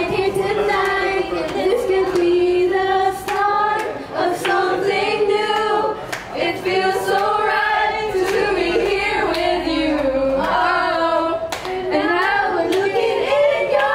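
Girls singing a song together without instruments, a lead voice into a handheld microphone, with hands clapping along.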